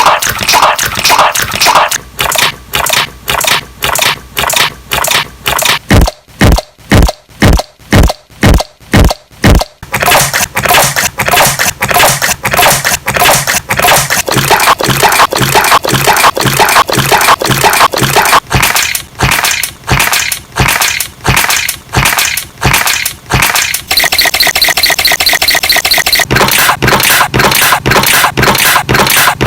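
Slime being squeezed and pressed by hand, giving a rapid run of sharp clicking and popping sounds, a few per second. A stretch of deeper, low pops comes about a fifth of the way in.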